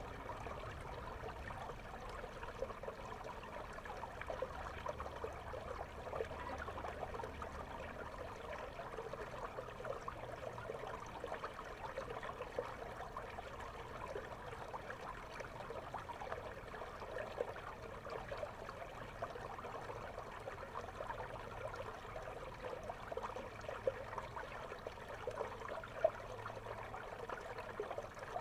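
River water flowing, heard through a waterproof action camera's microphone underwater: a steady bubbling trickle dense with many tiny pops and ticks.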